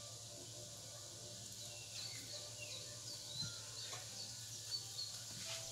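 A metal spoon scraping roasted acorn squash flesh out of the skin and knocking against a glass bowl: soft scrapes and a few light clicks, the sharpest a little before the end. Faint high chirps sound now and then behind it.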